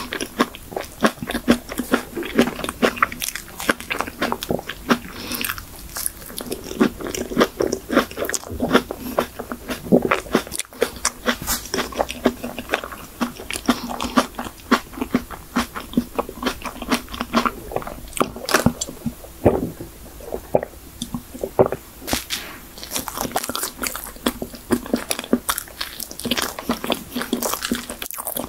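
Close-miked eating of cream cake topped with shine muscat grapes: crisp bites into the grapes, soft chewing and wet mouth clicks. Partway through there are sips and swallows from a glass of coffee.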